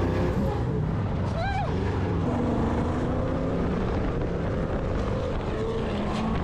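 Off-road vehicle engines running steadily, several pitches shifting against each other, with wind on the microphone. A short rising-and-falling tone cuts through about a second and a half in.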